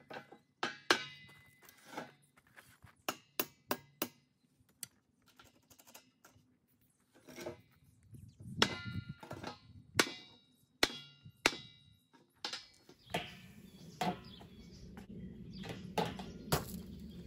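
Hammer blows knocking a wooden board and frame on a steel-grating landing into place: single sharp knocks with a slight metallic clang, coming in ones and small clusters with pauses between. Near the end, footsteps on the steel grating.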